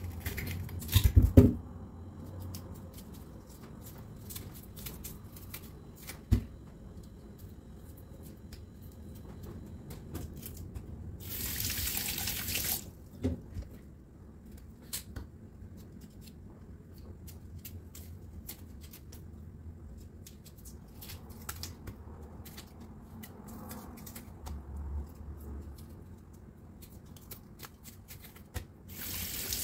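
Knife scraping and cutting the peel off cassava roots over a stainless steel sink, with small clicks and a few loud knocks about a second in. The tap runs briefly a little under halfway through and starts again near the end.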